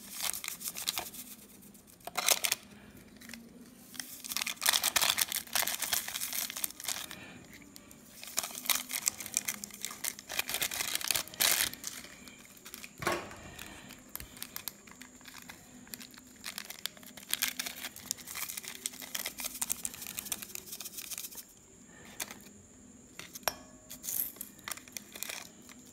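Small plastic-and-foil instant-coffee sachets crinkling and tearing as they are ripped open, squeezed and shaken empty, one after another. The crackly rustling comes in repeated spells and thins out over the last few seconds.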